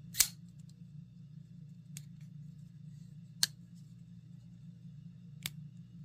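Rike RK Shadow folding knife's blade action snapping: four sharp metallic clicks, the first the loudest, a faint one about two seconds in and two more near three and a half and five and a half seconds, over a steady low hum.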